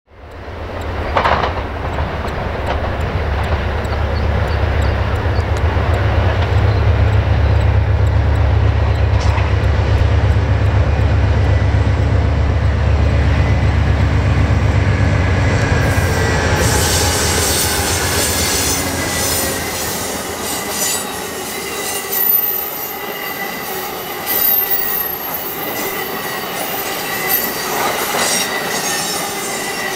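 Amtrak California Zephyr passing: the deep rumble of its two GE P42DC Genesis diesel locomotives fills the first half, then gives way to the rolling clatter of the double-deck Superliner cars' steel wheels on the rail, with a high wheel squeal and intermittent clicks.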